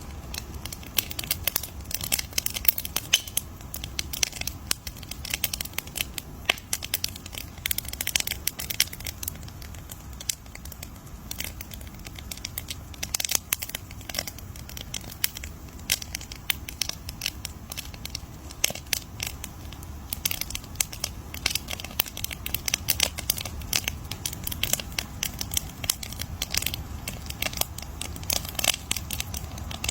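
Wood campfire crackling: dense, irregular pops and snaps of burning wood over a low steady rumble of the flames.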